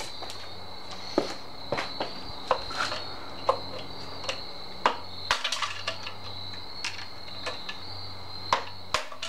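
Hammer striking a screwdriver driven against the steel stator housing of an opened hermetic compressor, knocking its retaining tabs off: a string of sharp metallic taps, irregularly spaced, roughly one every half second.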